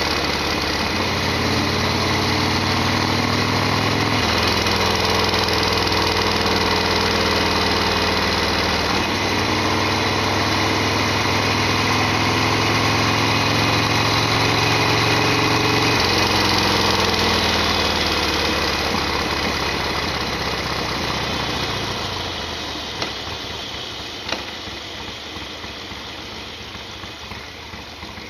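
Harley-Davidson Sportster XL1200's air-cooled V-twin running under way, its note shifting in steps a few times, then dying away as the engine quietens, leaving a softer hiss with two short clicks.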